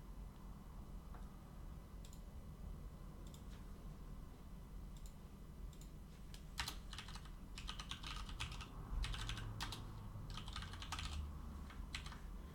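Faint typing on a computer keyboard: a few isolated clicks in the first half, then a quick run of irregular keystrokes from about halfway through, over a low steady hum.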